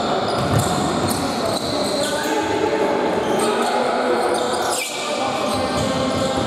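Basketball being bounced on a wooden sports-hall court during play, with players' voices calling out, all echoing in the large hall.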